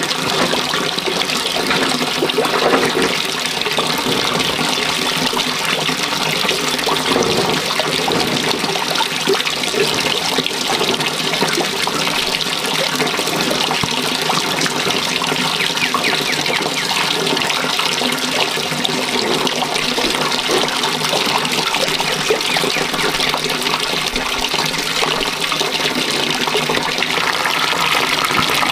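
A steady stream of running water pouring into a full plastic basin, splashing continuously.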